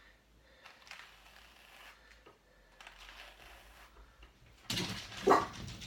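Pair of wire-toothed hand carders brushing wool fibre from one card to the other: soft scratchy strokes about a second apart, growing louder near the end. A brief, loud pitched sound, like a short cry or bark, comes with the last strokes.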